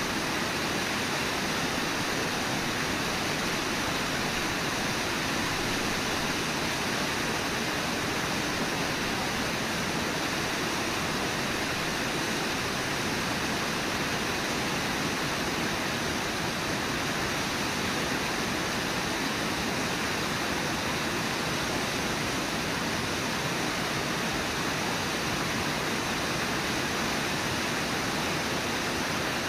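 Steady rush of water pouring over Brooks Falls, even and unbroken throughout.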